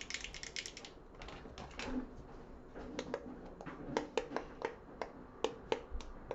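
Buttons and switches of a fidget controller (a handheld fidget pad shaped like a game controller) being clicked: a fast run of clicks at first, then separate, sharper clicks a few per second.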